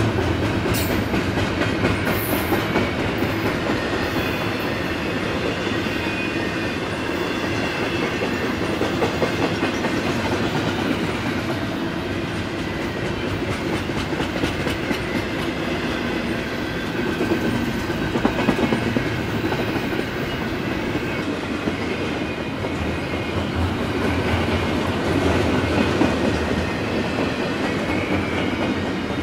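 Double-stack intermodal container train of well cars rolling past: a steady rumble of steel wheels on rail, with a continuous run of clicks as the wheels cross rail joints.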